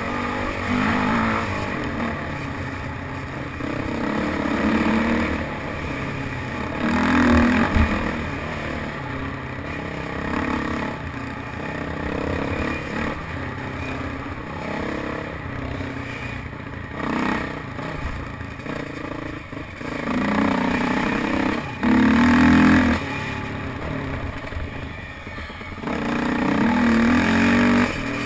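Dirt bike engine running along a trail, repeatedly revving up and easing off, with the loudest surges about a third of the way in, around two thirds through, and near the end.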